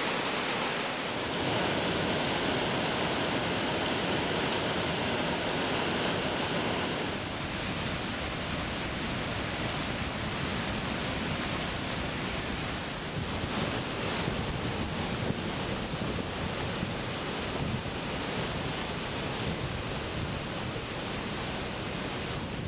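Rushing water: a rain-fed runoff stream cascading down a hillside onto a gravel road, then, from about seven seconds in, a flood-swollen creek churning through whitewater below a bridge, a steady, lower and heavier rush.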